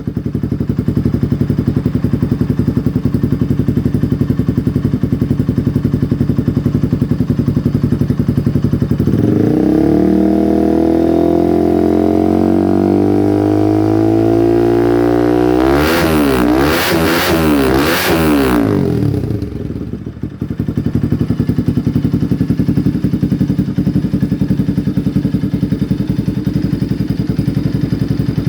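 Bajaj Pulsar 200's single-cylinder engine through an Akrapovic exhaust, idling, then revved in one long steady climb about a third of the way in. At the top it breaks into a rapid stutter for about two seconds before dropping back to a steady idle.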